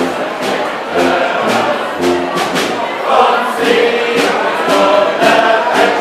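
A South Tyrolean village band performing a folk tune. Group voices sing over a steady beat of low bass notes and evenly spaced strikes.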